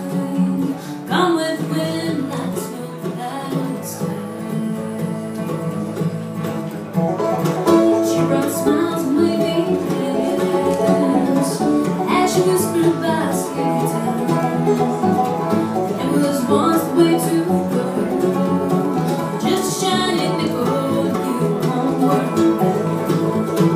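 Live acoustic bluegrass band playing: banjo, acoustic guitar, mandolin, fiddle and upright bass, the music getting louder about seven seconds in.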